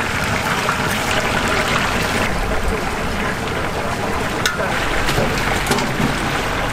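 Whole chickens deep-frying in a large cauldron of hot oil: a dense, steady sizzle and bubbling, with a few light clicks near the end.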